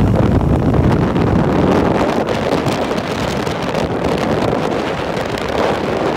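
Wind buffeting the microphone of a bike in motion, a steady heavy rumble with vehicle and road noise beneath it.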